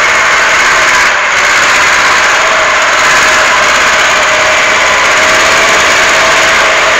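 LKT forestry skidder's diesel engine running steadily and loudly as the machine drives.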